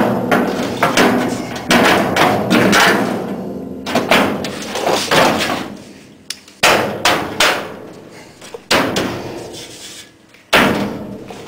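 A steel rocker panel on a 1963 Chevy truck cab being shoved and knocked into place, a tight fit under the door: an irregular series of about a dozen sheet-metal bangs and clanks, each ringing briefly, with one last loud bang near the end.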